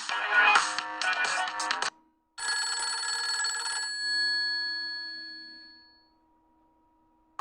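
Nokia X6-00 ringtones playing. A busy electronic tune cuts off about two seconds in. After a short gap a second ringtone plays, ending in a bell-like chord that rings out and fades away over about two seconds.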